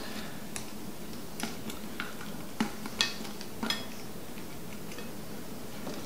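A few light, scattered clicks and crackles of tortilla chips shifting against the inside of a large tin can as the can is slowly slid up off a stack of layered nachos; the sharpest click comes about three seconds in.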